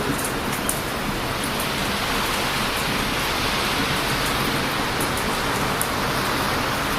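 Steady rushing noise of heavy surf breaking on a beach, with a few sharp crackles and pops from a wood bonfire, several in the first second or two and more about five seconds in.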